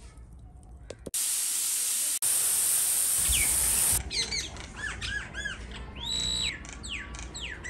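A loud, steady hiss for about three seconds, with a brief break partway, that cuts off suddenly. Then small birds chirp: a run of short, quick up-and-down calls and one longer held note.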